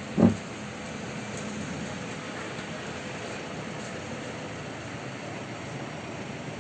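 Steady background rumble with one short, loud, low thump about a quarter second in.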